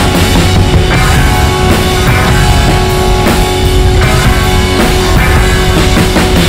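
Rock music with drums and guitar, loud and steady.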